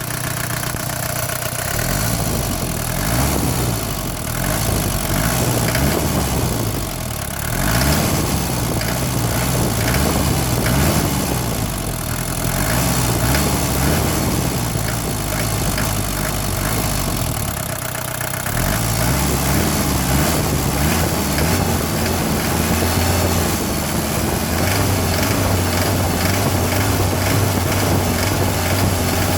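Mercedes 240D four-cylinder diesel engine idling and being revved with several quick throttle blips that rise and fall back to idle. A clanking noise comes with the quick blips but not with slow revs, its cause unknown to the owner.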